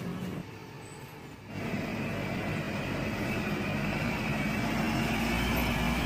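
Diesel engine of a UD concrete mixer truck running as the truck drives slowly past. After a brief quieter stretch near the start, its low rumble grows steadily louder as it draws near.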